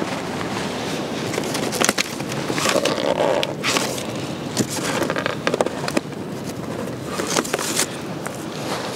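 Charcoal fire crackling under a whole fish grilling in a wire basket, with sharp pops scattered through, over a steady rushing noise.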